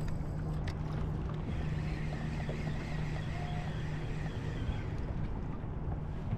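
Low, steady hum of the skiff's electric trolling motor that cuts off about four and a half seconds in, over wind and water noise around the hull.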